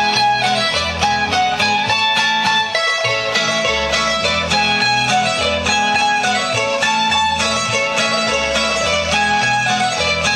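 Folk dance music played on plucked string instruments, a quick melody over a steady pulsing bass.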